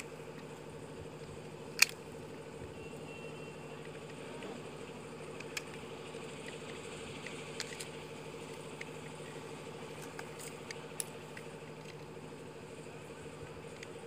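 A steady engine-like hum with a few sharp clicks, the loudest about two seconds in.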